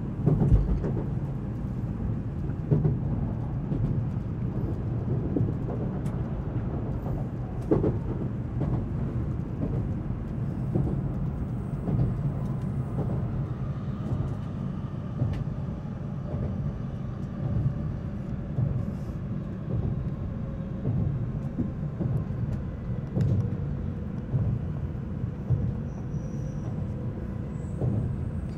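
Inside the passenger cabin of a Tokaido Shinkansen N700-series train pulling out of the station and gathering speed: a steady low rumble with occasional short, sharp knocks.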